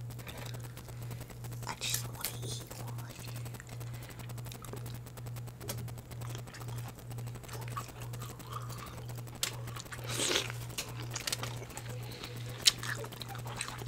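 Scattered short cracks and crinkles as boiled crab is broken open and eaten, over a steady low hum.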